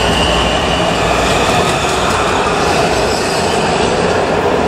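Washington Metro subway train moving through the station on the far track, the rumble of its wheels fading about three and a half seconds in as the last car clears. A high wheel squeal rings over it in the first second or so.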